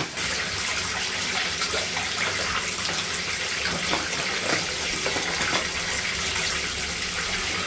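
Bath tap running into a bathtub, a steady rush of water filling the tub.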